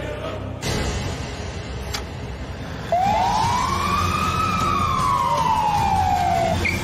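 Ambulance siren giving one wail: it starts about three seconds in, rises quickly, and then falls slowly over about three and a half seconds.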